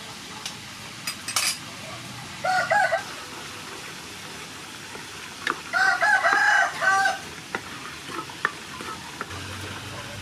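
A thick sauce of hoisin, chili sauce and sugar sizzles in a frying pan as a wooden spatula stirs it, with a few light taps and scrapes against the pan. A rooster crows twice, a short call about two and a half seconds in and a longer, louder crow about six seconds in.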